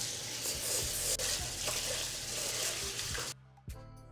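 Kitchen faucet water running and splashing into a rice cooker pot as rice is washed by hand. It stops abruptly a little over three seconds in.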